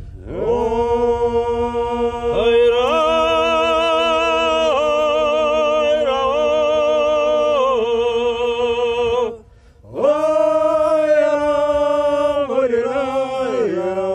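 A group of men singing a Kabardian (North Caucasian) folk song unaccompanied, long held notes with vibrato over a steady drone, in two phrases with a short breath between them about nine seconds in.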